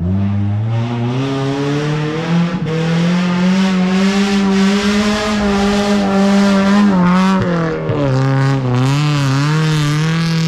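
Off-road 4x4's engine revving hard under load. The pitch climbs over the first two seconds and holds high, dips briefly about seven seconds in, then wavers up and down and rises again near the end.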